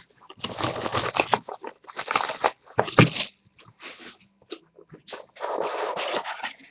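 Hands opening a sealed trading-card box: crinkling and tearing of its plastic wrap and scraping of the cardboard, in several bursts with a sharp tap about three seconds in.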